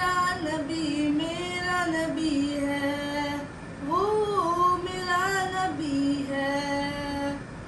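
A boy singing a naat, an Urdu devotional song in praise of the Prophet, unaccompanied, in long held notes with ornamented rises and falls. The voice stops just before the end.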